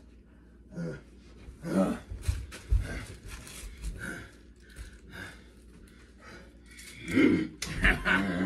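Grunts and heavy breathing from two men grappling, with a few dull thumps of bodies hitting the floor and furniture.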